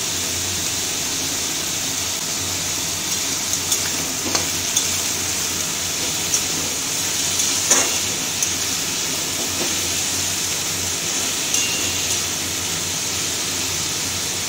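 Shredded cabbage, carrot and green beans sizzling as they stir-fry in mustard oil in a metal kadai. From about three seconds in, a steel spatula scrapes and clinks against the pan as the vegetables are turned.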